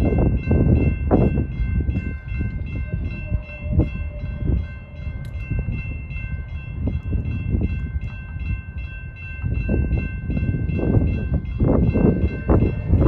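Railroad crossing warning bell ringing as the crossing activates, a rapid run of ringing strikes over a steady chord-like tone, while the gate arm lowers. Heavy wind buffets the microphone with gusty low rumbling.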